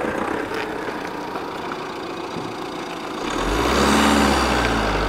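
A car drives up and passes close by: its engine hum and tyre noise come in about three seconds in, swelling loudest around four seconds, then the engine keeps running low and steady.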